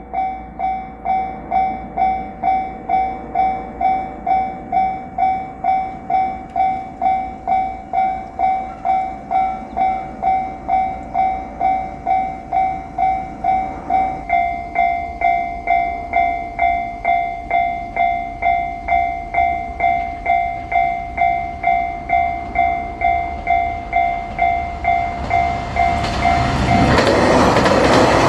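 Japanese level-crossing warning bell ringing its steady, evenly repeating two-tone clang. Near the end a JR Shikoku diesel limited-express train arrives and passes, its loud running noise rising over the bell.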